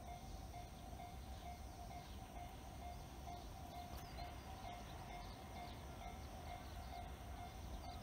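Faint station-platform ambience with no train: a steady, slightly pulsing mid-pitched tone over a low rumble, with a few faint high chirps about halfway through and near the end.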